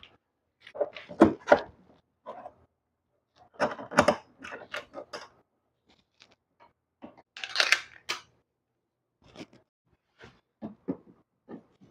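Irregular clicks, taps and short scrapes of hand tools working on a wall light switch and the drywall around its box, with a longer, hissier scrape about seven seconds in.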